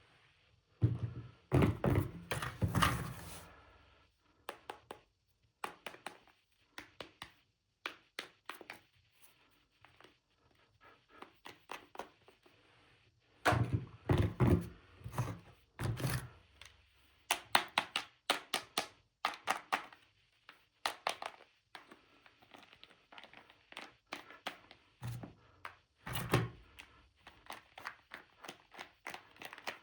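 Plastic toy pieces being handled and set down: an irregular string of clicks, taps and thunks, with louder bunches near the start, about halfway through and near the end.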